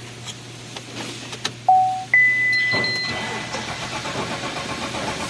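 A car's electronic warning beeps twice, a short lower tone and then a longer higher one, and then the starter motor cranks the engine with an even, rapid pulsing while it fails to fire. It cranks but won't start because no fuel is reaching the fuel rail: the fuel pump is not delivering.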